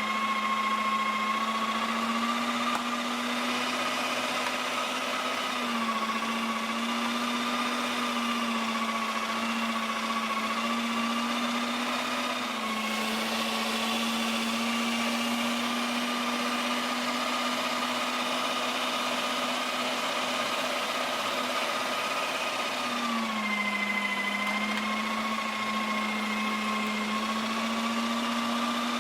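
Cuisinart electric meat grinder's motor running steadily while grinding short ribs, a continuous hum whose pitch sags briefly a few times, near six, twelve and twenty-three seconds in.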